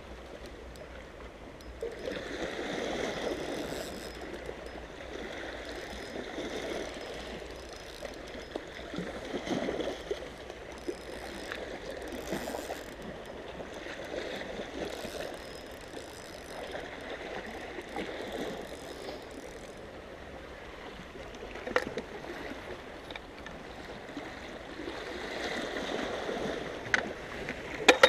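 Small sea waves lapping and washing against shoreline rocks, surging and falling back every few seconds. A few sharp knocks near the end.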